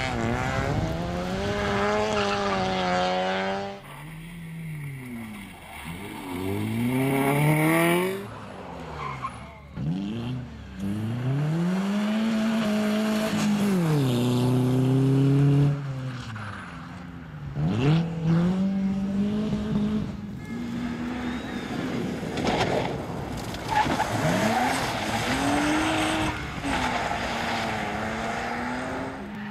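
Several club competition cars driven hard one after another: engines revving high and dropping back over and over as they brake and shift gears. The tyres squeal at times. The sound changes abruptly now and then as one car gives way to the next.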